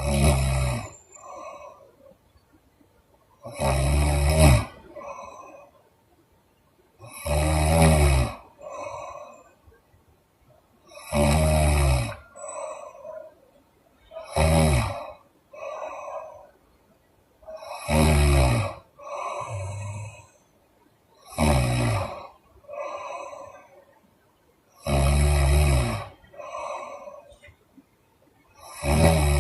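A sleeping woman snoring loudly and rhythmically, with a rough, rattling snore about every three and a half seconds. Each snore is followed by a shorter, softer exhale.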